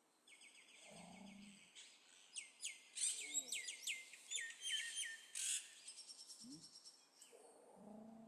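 Small songbirds chirping and twittering in quick series of high notes and trills, busiest and loudest in the middle stretch.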